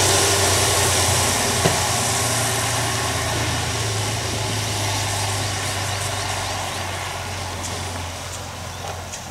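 A vehicle engine running with a steady low hum over a wash of noise, slowly growing fainter. There is one short click about a second and a half in.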